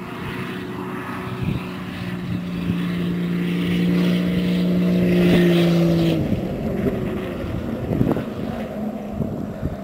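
Jeep engine running under throttle, its note rising slightly and held for a few seconds, then dropping away about six seconds in, with road and wind noise and a sharp knock near the end.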